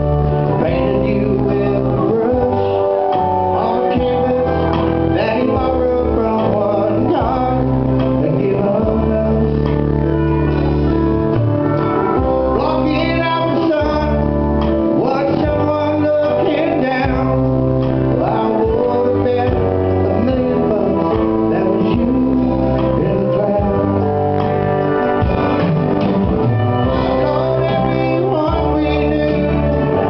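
Live country band playing a song: a man singing over strummed acoustic guitar, with a bass line of long held low notes.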